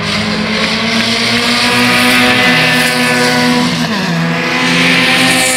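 Several small race cars passing close at high revs, their engines running together at full throttle. The engine note drops in pitch twice, about two and a half and four seconds in.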